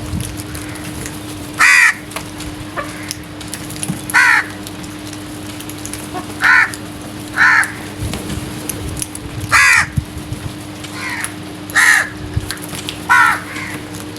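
Crows cawing: about seven loud, harsh single caws at irregular intervals, with a few fainter caws between them, over a steady low hum.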